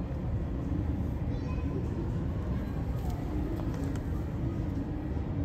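Twin-engine jet airliner taxiing, its engines a steady low rumble heard from a distance.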